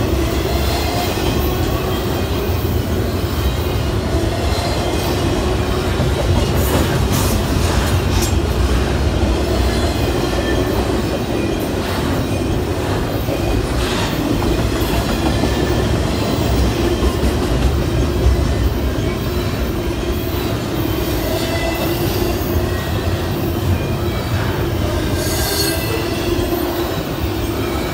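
Double-stack intermodal well cars rolling past close by: a steady rumble of steel wheels on rail, with thin, high wheel-squeal tones running through it and a few sharp clicks.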